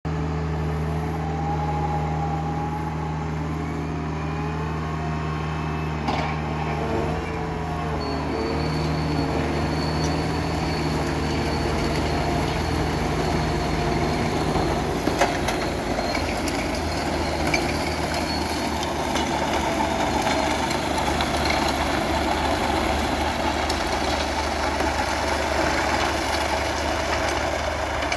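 New Holland T7.185 tractor's diesel engine running steadily under load as it pulls a trailed compost spreader, with the spreader's rear beaters flinging compost, a rough churning noise that grows from about eight seconds in. A few odd knocks from the machinery.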